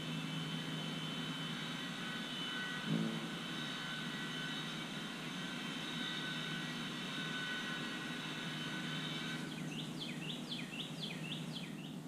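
Steady engine drone with a faint high whine, like a distant motor or aircraft. A single thump about three seconds in, and near the end a quick run of high chirping notes.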